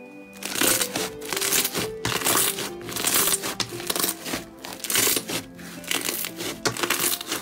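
Fluffy slime squeezed and pulled between the fingers, crackling and popping in rapid clicks as air pockets burst, starting about half a second in. Background music with a melody of short notes plays throughout.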